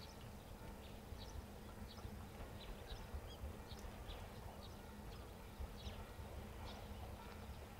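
Faint outdoor ambience: small birds giving short, scattered chirps over a low, steady rumble.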